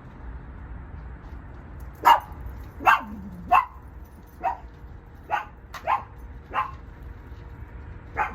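A dog barking: about eight short, sharp barks, irregularly spaced, starting about two seconds in.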